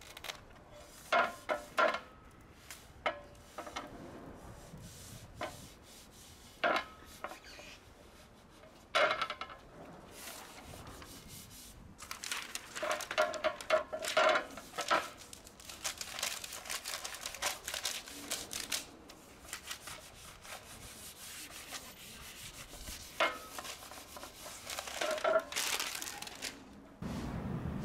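A clear plastic film being peeled off a printed sign sheet while gloved hands smooth and press the sheet flat onto the board: irregular crinkling, rustling and rubbing, with a few sharp crackles of the film about a second in and a denser run of crinkling in the middle.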